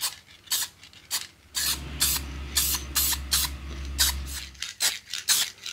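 Aerosol spray can of top-coat paint sprayed in many short bursts of hiss in quick succession.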